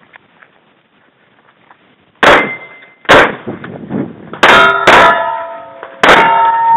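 Five shots from a Kimber 1911 pistol over about four seconds, starting about two seconds in. Steel plate targets ring with clear, lingering tones after the hits.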